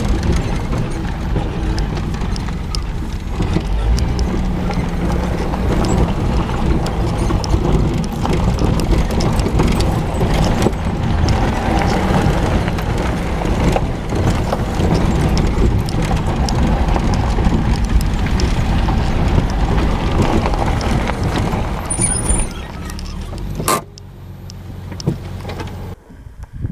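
Jeep driving over a rough dirt trail, heard from inside the cab: engine and tyre noise with steady rattling and knocks from the bumpy ground. Near the end there is one sharp click and the noise drops off sharply.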